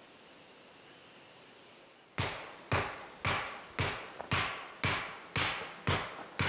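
A hammer driving stakes into the ground: sharp, evenly spaced blows about two a second, starting about two seconds in after faint outdoor background.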